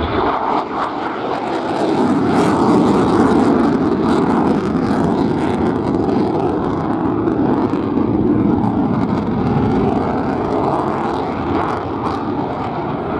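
Lockheed Martin F-35B Lightning fighter jet flying overhead, its Pratt & Whitney F135 turbofan making loud, steady jet noise that builds over the first two seconds and then holds.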